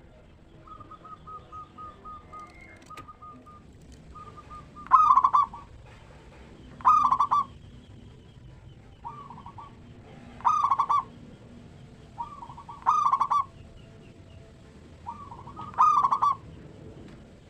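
Zebra dove (perkutut) cooing: soft rapid trilled notes, then five loud ringing song phrases at intervals of about two to three seconds, each led in by quieter notes.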